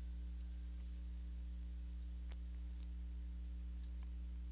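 Steady low hum with a few faint clicks of a computer mouse.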